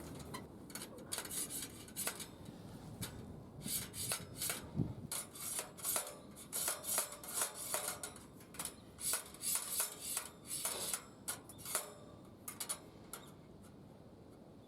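Metal pieces being handled: a run of light metallic clinks and scrapes, some with a brief ring, stopping near the end.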